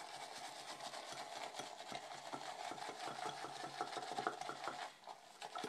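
Boar-bristle shaving brush whipping shaving-soap lather in a hand-held bowl: a fast, steady wet swishing and clicking of the bristles against the bowl's sides as the lather builds.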